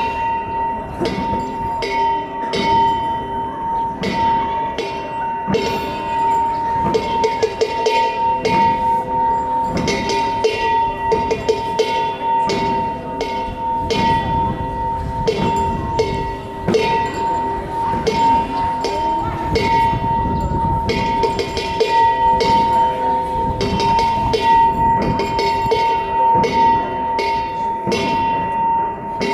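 Bhutanese monastic cham music: a large drum on a pole beaten and cymbals clashed in an uneven rhythm, the strokes coming every half second or so over metallic ringing tones that sound through the whole passage.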